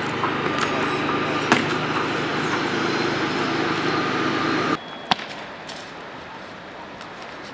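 Steady city traffic noise that cuts off abruptly about two-thirds of the way through. Quieter street ambience follows, with one sharp knock just after the cut.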